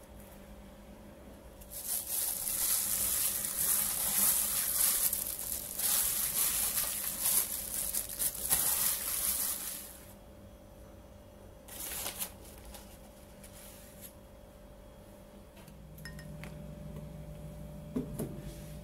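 Ground chicken, tofu and green onions being mixed in a glass bowl: a busy, wet, hissing noise from about two seconds in until about ten seconds in. A shorter burst follows near twelve seconds, then a few small clicks near the end, over a faint steady hum.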